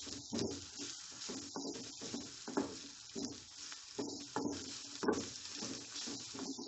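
Sliced onions and ginger-garlic paste sizzling in hot oil in a kadai while a metal spatula stirs and scrapes them, in repeated strokes about twice a second.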